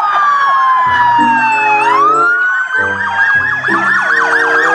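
Police-style siren wailing: a long tone falls slowly over about two seconds and then climbs again, with fast repeated yelping sweeps layered on top. Children's background music plays beneath it.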